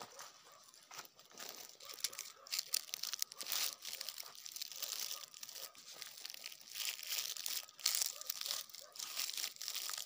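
Irregular rustling and crackling of dry grass and twigs being disturbed on the ground, with many small sharp crackles that grow busier from about two seconds in.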